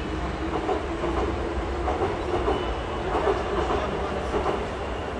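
Steady low rumble of outdoor city noise, like passing traffic or a train, with indistinct clatter over it.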